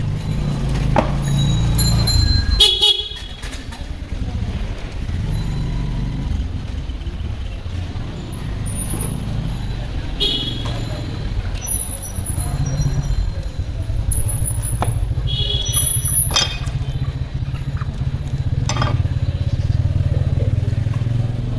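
Street traffic: vehicle engines running close by, with horns honking a few times, the loudest near the start. A few sharp knocks stand out over the rumble.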